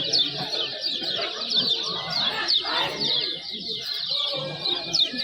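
Many kecial kuning (white-eyes) calling together: a dense, unbroken chatter of quick, high, downward 'ciak' chirps overlapping one another.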